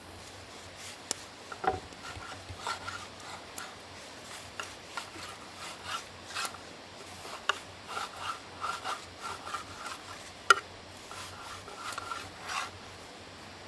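Irregular scraping strokes, a few a second, broken by a few sharp clicks, one louder click about ten seconds in.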